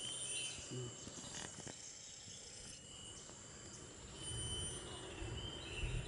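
Faint bird calls: short, thin whistled notes repeated several times over a steady high-pitched insect drone, with some low rumbling after about four seconds.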